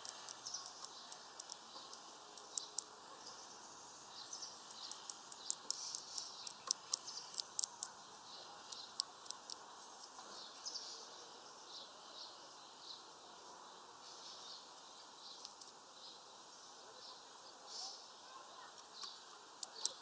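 Small songbirds chirping: many short, high call notes in irregular runs, densest in the first half, over faint steady background noise.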